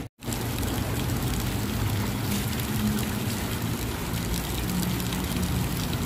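Fountain jets splashing into a stone basin: a steady rush of falling water, with a low rumble underneath. It starts just after a brief dropout at the very start.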